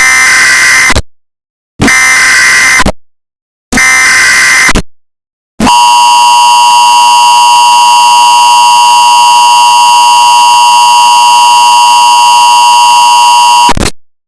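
Emergency Alert System tones: three separate one-second screeches of digital data (the SAME header), then the steady two-tone attention signal, about eight seconds long, which cuts off abruptly near the end.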